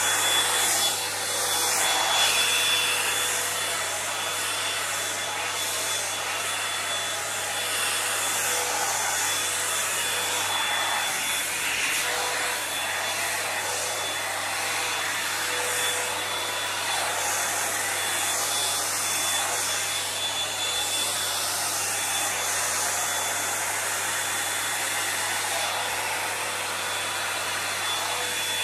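Toni & Guy hot-air volumiser brush running steadily, a rush of blown air with a constant high whine from its fan motor.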